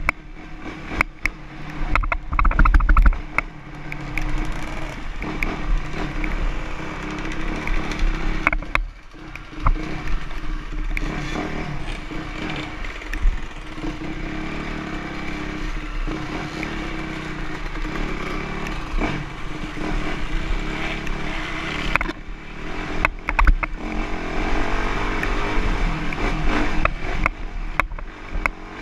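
Motocross dirt bike engine running and revving as it is ridden, pitch rising and falling. Frequent sharp clicks and knocks and a low rumble of wind on the camera mix in, loudest about two to three seconds in.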